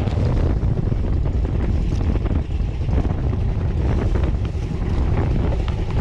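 Wind buffeting the microphone over the steady low rumble of a small fishing boat underway while trolling.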